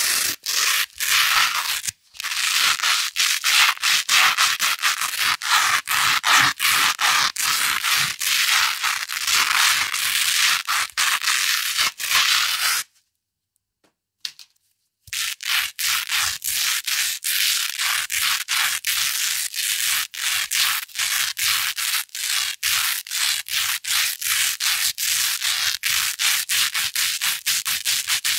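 Hook-and-loop fastener (Velcro): a hook roll scratched and rubbed against loop rolls in rapid rasping strokes, several a second. The strokes stop for about two seconds midway, then start again.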